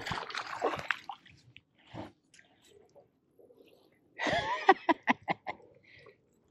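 Water splashing as a hooked bass thrashes at the surface while being pulled in to the kayak. There is a loud splash at the start, then a quick flurry of splashes about four seconds in.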